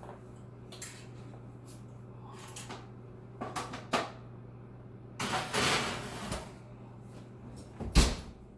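Kitchen handling noises: a few clicks and knocks, about a second of rustling or scraping, then a sharp thump near the end, all over a steady low hum.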